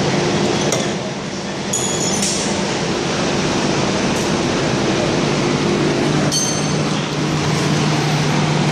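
Steel lathe tooling clinking and ringing as a cutting tool is fitted and set: two short metallic clinks, about two seconds in and again a little past six seconds. A steady machinery hum runs under them.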